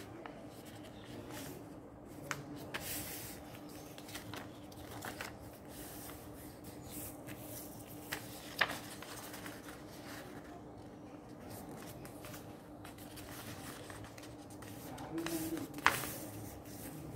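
Sheets of paper rustling and sliding over a plastic-covered table as they are folded and moved about, with a few sharp taps, two of them louder than the rest. A faint steady hum runs underneath.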